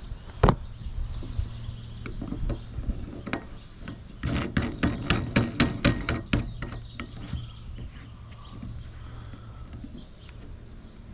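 Sink drain strainer being fitted and turned by hand: a sharp knock about half a second in, then a run of about ten quick clicks over roughly two seconds, about four seconds in.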